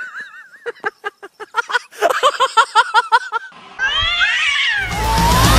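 Domestic cats yowling and caterwauling. A wavering cry comes first, then a quick run of short cries, then longer rising and falling yowls. Loud rock music comes in near the end.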